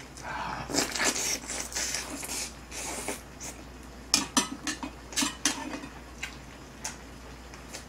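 Metal tongs clicking and scraping against the pot and a small black bowl as pieces of braised chicken are served, a run of sharp clicks from about four seconds in. Close-up chewing and wet mouth sounds in the first few seconds.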